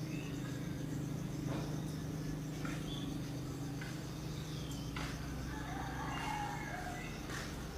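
Birds chirping and calling in short, scattered notes, with a brief warbling phrase about six seconds in. Underneath runs a steady low hum and a faint, steady high buzz.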